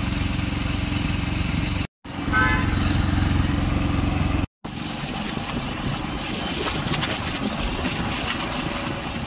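Motorcycle engine running steadily while riding, with road and wind noise, heard from on the bike. It drops out twice for a moment; after the second gap the engine hum is fainter and the wind and road noise stronger.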